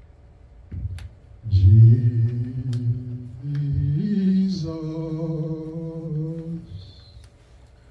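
A man singing slowly into a microphone in a low voice, holding long sustained notes over about three phrases, the last held for about two seconds. A soft thump comes just before the singing begins.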